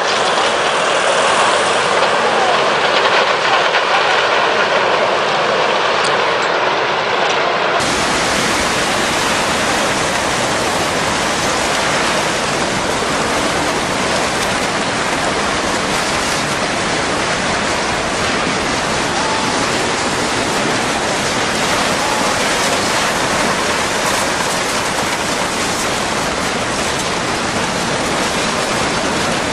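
Tsunami floodwater rushing in a loud, steady, unbroken rush. About eight seconds in it turns abruptly fuller, with a deep rumble added underneath.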